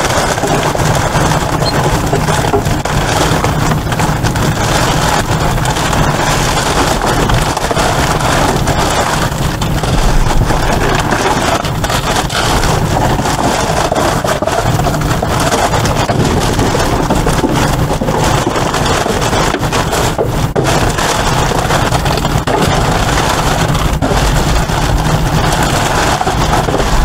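Black plastic trash bags rustling and crinkling continuously as they are handled and dug through, with scattered crackles and scrapes of trash shifting, over a steady low hum.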